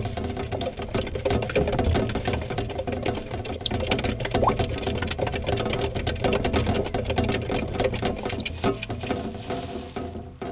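Metal exercise wheel spinning under a running Richardson's ground squirrel: a fast, steady rattle of rapid clicks. A few short, thin high squeaks that fall in pitch come over it, around a second in, near four seconds and past eight seconds.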